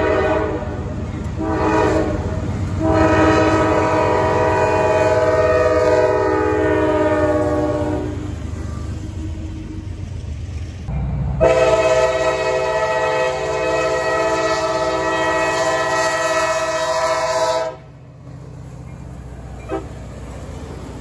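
Locomotive air horn blowing over the rumble of a passing freight train: two short blasts, then a long blast, and after a pause a second long blast that cuts off sharply.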